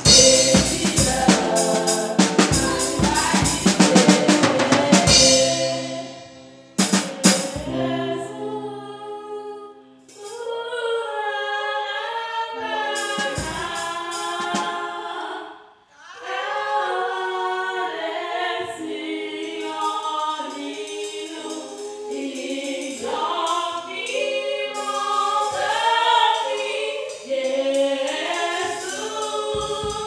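Worship music: a drum kit and band play loudly, stop about six seconds in, and after a short pause a choir takes up a song, with occasional drum strokes under the singing.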